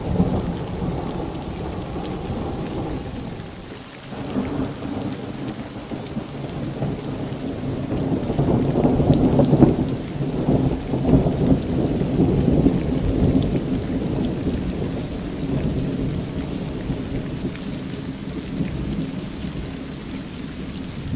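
Thunderstorm: thunder rumbling in long rolls, dipping briefly about four seconds in and swelling loudest around the middle, with rain falling.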